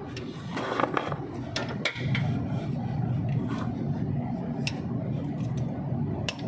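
Scattered sharp metallic clicks and taps of a spanner or socket being fitted onto the A/C compressor's mounting bolts, over a steady low hum.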